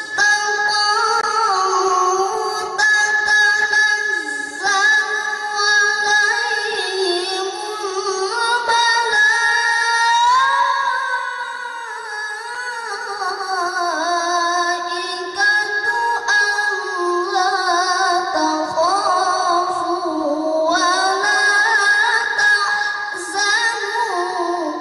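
A boy qori reciting the Quran in melodic tilawah style into a microphone, amplified over loudspeakers. His high voice holds long, wavering, ornamented notes that glide up and down in drawn-out phrases, with short breaths between them. The recitation stops at the very end.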